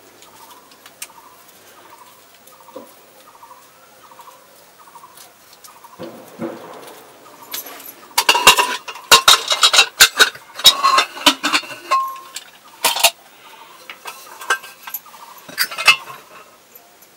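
Steel cooking pots and lids clanking and clattering as they are handled and set down, a run of sharp metallic knocks with some ringing that starts about eight seconds in and lasts about five seconds, then a few scattered knocks. Before the clatter, faint bird calls repeat about twice a second.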